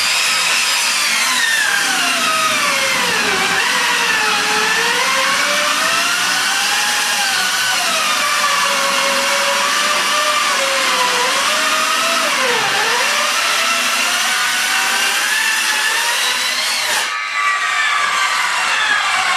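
Corded power saw cutting through particle-board subfloor, its motor whining steadily, the pitch dipping and recovering as the blade loads up in the cut. Near the end the motor winds down, falling in pitch.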